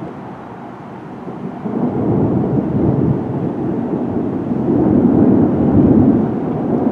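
Rolling thunder from a thunderstorm, rumbling up about a second and a half in and growing loudest near the end before easing slightly.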